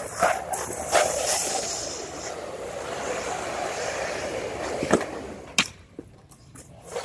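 Yellow fire hose dragging and scraping along asphalt as it is pulled out, with a few sharp knocks; the scraping dies away about five seconds in.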